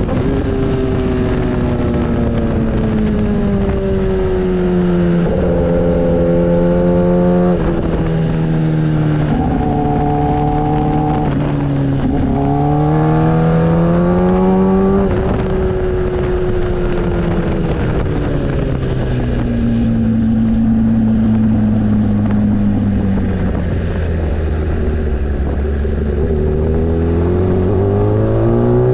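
Motorcycle engine running under way, its pitch climbing as it revs through the gears and dropping at each change. It falls to a low, slow note for a while in the second half, then climbs again near the end, with a rush of wind over the microphone.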